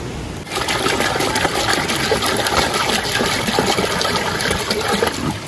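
Water poured from a plastic jerry can splashing into a large metal cooking pot as it fills. It starts about half a second in and stops shortly before the end.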